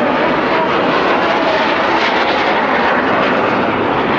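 Formation of Aermacchi MB-339 jet trainers flying past with their turbojet engines: a steady, loud rush of jet noise with no breaks.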